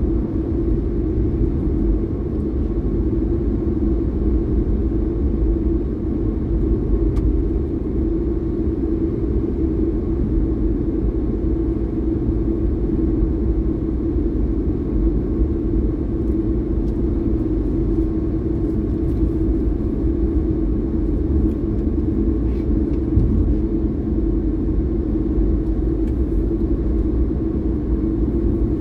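Car driving at speed on a paved highway: a steady low rumble of engine and road noise.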